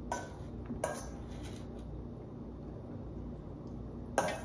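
A metal spoon clinking against stainless steel mixing bowls while spinach is spooned between them: a few sharp clinks, the loudest near the end.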